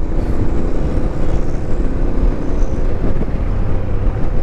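Royal Enfield Interceptor 650's parallel-twin engine running steadily under way, over a constant rush of road noise.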